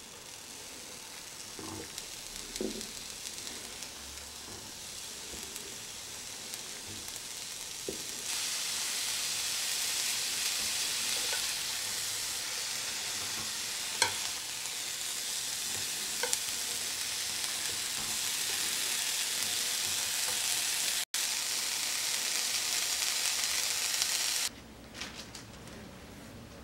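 Oil-treated deodeok roots sizzling in a dry nonstick frying pan over low heat, with a few light taps of chopsticks and pieces being laid on the pan. The sizzle grows louder about eight seconds in and cuts off suddenly near the end.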